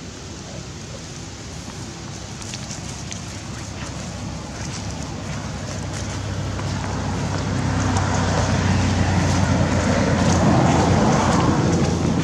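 A motor vehicle's low engine rumble growing steadily louder over several seconds as it draws closer, with light ticks and crackles over it.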